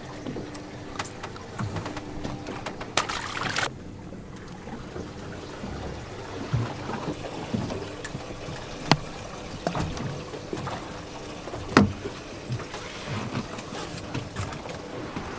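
Water lapping and trickling against the hull of a drifting fishing boat, with scattered small knocks and clicks of gear on the boat and a faint steady hum. A short rushing noise comes about three seconds in.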